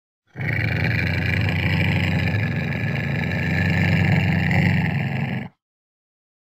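Ocelot growling: one long, deep, steady growl lasting about five seconds that starts and cuts off abruptly.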